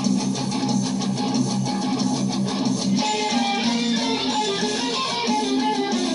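Electric guitar played through a Vox combo amp: a continuous riff of sustained low notes with higher notes over them, at a steady level.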